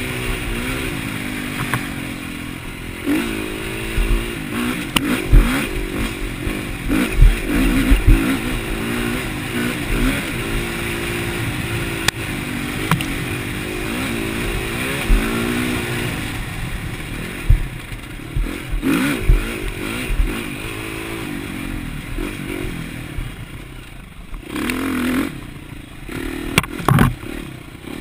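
Dirt bike engine revving up and down as it is ridden over a rough dirt trail, with clattering knocks from the bike over bumps. Near the end the engine drops to a lull, then picks up again in short bursts of throttle.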